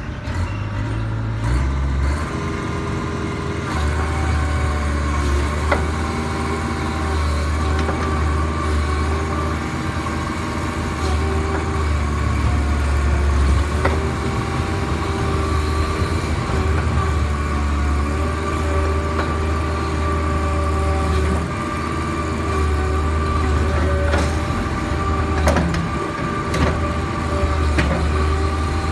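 Kobelco SK60-2 excavator's diesel engine running, with a hydraulic pump whine that steps up and down in pitch as the boom, arm and bucket are worked. A few short clicks come through now and then.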